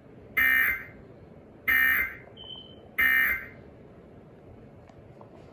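Emergency Alert System end-of-message (EOM) data tones: three short bursts of digital data, about a second and a quarter apart, signalling that the alert has ended.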